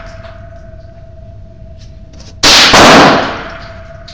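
Remington 597 .22 rimfire semi-automatic rifle firing: two sharp cracks close together about two and a half seconds in, then a long fading tail.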